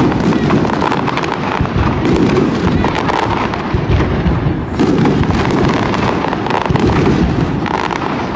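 Aerial firework shells bursting in a display, a loud dense run of bangs and pops with no break.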